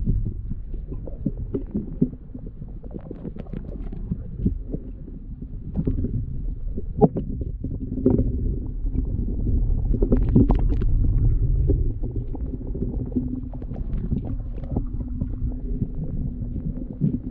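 Muffled underwater sound picked up by an action camera in its waterproof housing: a low, steady rumble of moving water with scattered clicks and taps, and a faint steady hum underneath.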